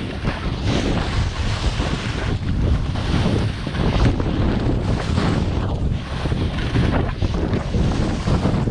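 Wind buffeting the microphone in a steady, gusty rush while skiing downhill.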